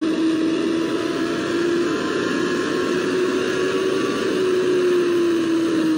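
Sportbike engine running steadily at high speed under a loud rush of wind noise, as recorded by a helmet camera. The engine note holds nearly level and sinks slightly over the last couple of seconds.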